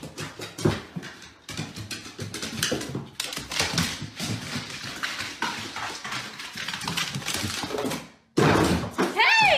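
A dog's claws and paws clicking and thumping on hardwood stairs as it runs on them, in quick irregular taps. Near the end a loud pitched call rises and falls over about a second.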